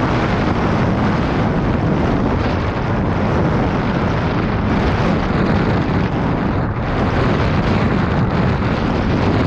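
Motorcycle on the move, heard mostly as steady wind buffeting the helmet camera's microphone, with the engine running underneath.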